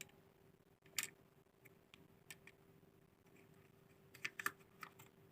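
A few faint, sharp clicks and light knocks of the washing machine's drain-valve parts being handled and fitted back in, the loudest about a second in and a short cluster near the end, over a faint steady hum.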